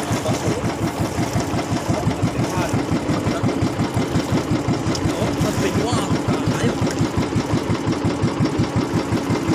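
Small engine of a motorized outrigger boat (bangka) running steadily under way, a rapid, even putter.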